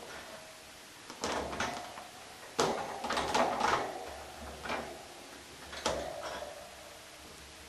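Wire pet cage rattling and clinking as kittens climb the bars and bat at a wand toy poked through them: several short clattering bursts, the longest through the middle.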